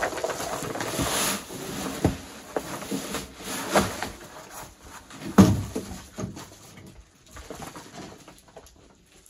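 A wheelbarrow load of gravel tipped out onto a pile: a rush of pouring, rattling stones, with knocks from the barrow and one loud thump about five seconds in, then quieter rattling as the barrow is wheeled off.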